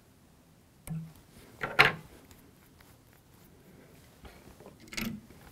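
Fly-tying scissors and tools handled at the tying bench: a few brief, separate clicks and knocks, the loudest about two seconds in.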